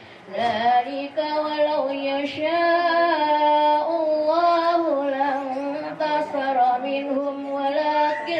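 A woman reciting the Qur'an in a melodic chant into a microphone, holding long ornamented notes. She pauses briefly for breath right at the start.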